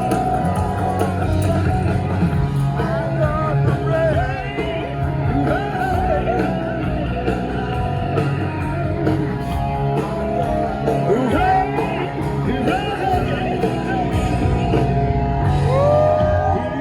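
Live rock band playing the end of a song, with electric guitars and a singer's voice over them, recorded from the audience.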